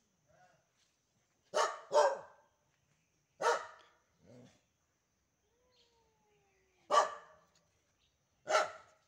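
Dog barking in short, sharp single barks: a quick pair about a second and a half in, then single barks a few seconds apart.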